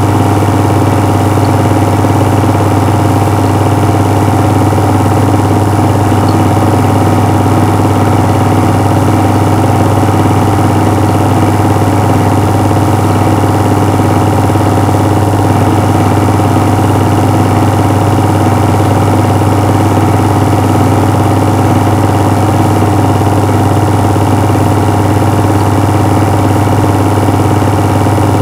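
A loud, steady machine hum with a strong low drone and a buzzing, motor-like texture, unchanging in level or pitch.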